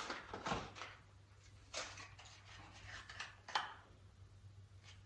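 Faint clicking and rustling of a new spark plug's packaging being opened and handled. There is a cluster of small noises at first, then single sharper ones about two and three and a half seconds in.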